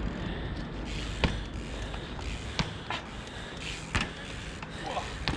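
Outdoor street background noise, a steady low rumble, with about five sharp clicks and knocks scattered through it.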